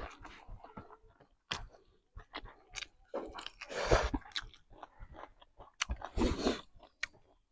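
A person chewing chicken and rice close to a clip-on microphone: wet, crunchy chewing in uneven bursts, loudest around four seconds in and again around six.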